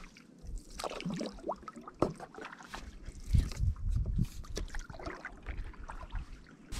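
A paddle dipping into the water, with irregular splashing, dripping and light knocks against the craft, and a few low bumps about halfway through.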